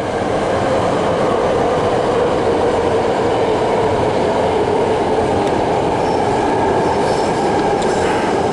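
A passing train: a steady rumble of rail noise with faint high squealing tones over it.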